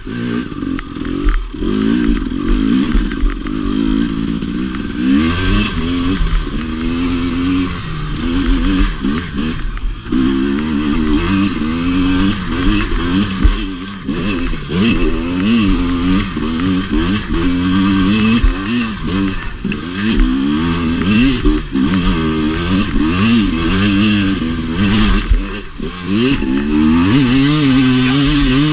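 2017 KTM 250 XC-W's two-stroke engine revving up and falling back over and over as it is ridden hard, with scattered clattering knocks.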